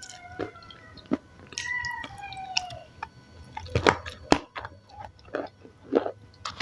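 Close-up chewing of crunchy raw salad, with irregular crisp crunches, the loudest about four seconds in. A faint falling tone sounds about two seconds in.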